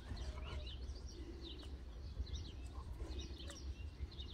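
Small birds chirping faintly in many short, quick calls, over a low steady rumble.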